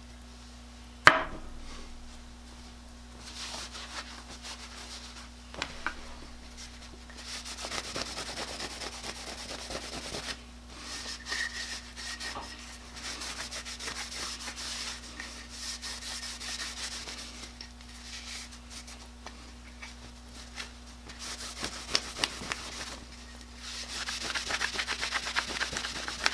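Cloth rag rubbing paste wax onto the wooden body of a transitional hand plane: a dry scrubbing hiss in several spells with short pauses. A single sharp click about a second in is the loudest sound.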